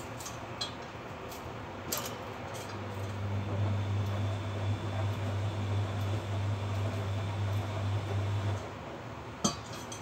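Kitchen scissors snipping leafy vine stems: a few sharp clicks and clinks, the loudest one near the end. Under them runs a steady low hum that stops about a second before the end.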